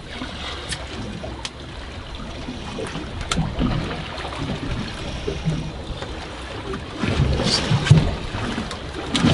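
Water slapping against a fishing boat's hull over wind noise, with a few sharp clicks and a louder surge of water about seven seconds in.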